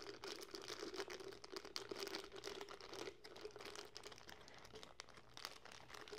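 Faint, irregular crinkling of a thin plastic bag as hands squeeze and work water kefir grains out of it into a glass jar.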